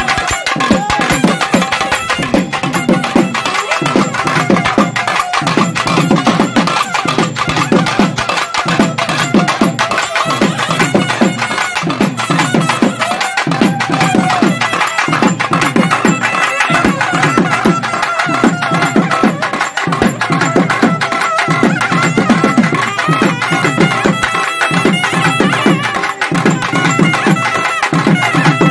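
Naiyandi melam folk band playing: a loud, reedy nadaswaram melody over fast, driving thavil drumming, with no break.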